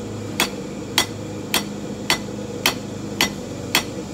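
Hand hammer striking a red-hot half-inch square bar on the edge of an anvil: seven evenly paced blows, about two a second, forging a set down to isolate the leaf's stem. A steady low hum runs underneath.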